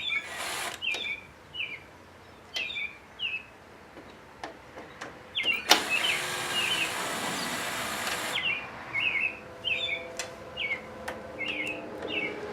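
Small birds chirping over and over in short, quick, falling chirps, with a few sharp clicks and a stretch of hiss about six to eight seconds in.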